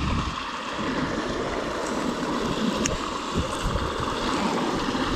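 Steady rush of flowing river water, with one light click about three seconds in.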